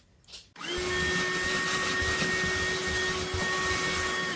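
Handheld cordless vacuum cleaner switched on about half a second in and running steadily with a motor whine, sucking up foam crumbs left from drilling a hole.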